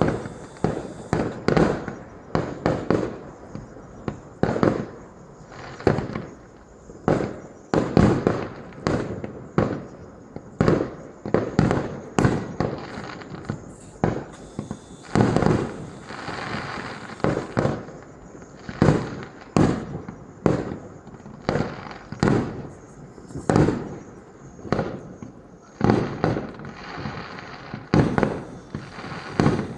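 Fireworks going off in quick succession: a steady run of booming bursts, one to several a second, each echoing away, with a stretch of continuous crackle about halfway through.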